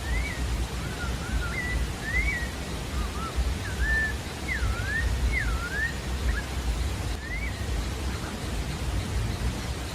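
Sabiá-da-várzea singing a run of clear whistled notes that slide up and down in pitch, one after another for about six seconds, then a single note a little later. A steady low rumbling noise runs underneath.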